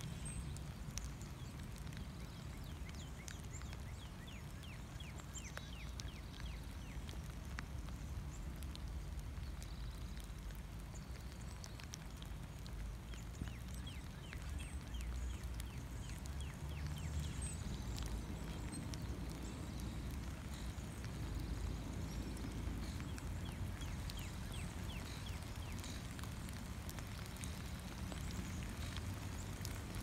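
Light rain pattering and dripping in many small ticks, with birds chirping faintly now and then over a low steady rumble.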